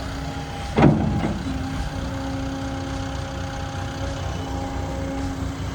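Heavy equipment diesel engine running steadily. About a second in there is a sudden loud sound whose pitch falls sharply.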